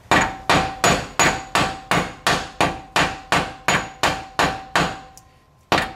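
Light, rapid hammer taps on a 1-5/8 inch socket, driving a press-in wheel bearing into the end of a Ford 8.8 rear axle housing. About three strikes a second, each with a short metallic ring, with a brief pause near the end before the tapping resumes.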